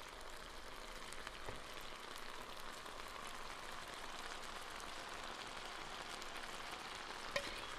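Stir-fry vegetables and sauce sizzling steadily in a hot electric skillet, with a few light clinks of a utensil near the end.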